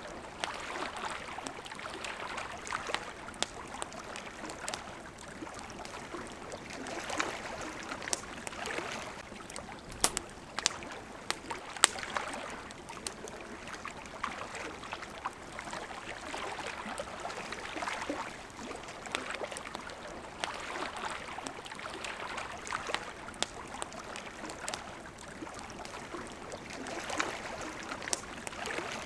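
Water lapping and splashing in irregular swells, with the sharp pops and crackles of a burning campfire scattered through it. A few of the louder pops come about ten to twelve seconds in.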